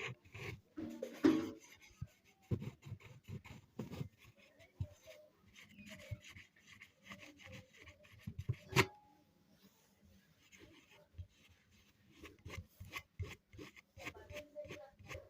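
Hand rubbing and scratching on a speaker's surface as oil is worked into the material, with light handling knocks. There is a louder knock about a second in and a sharp click a little past halfway.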